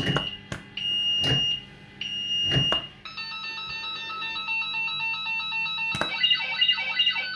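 Firecracker fruit machine's nudge beeps: three steady electronic tones, each with a sharp click as a reel steps. From about three seconds in, an electronic sound of several tones comes in and warbles near the end as the machine signals a win.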